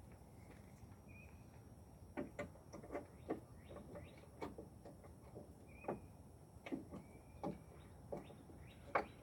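Scattered light clicks and knocks of hands working a headlight bulb in and out of its housing, the sharpest one near the end. A few short bird chirps sound in the background.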